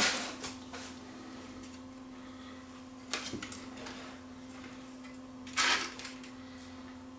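Workbench handling noises: a small knock about three seconds in and a brief rustle near six seconds, over a steady low electrical hum.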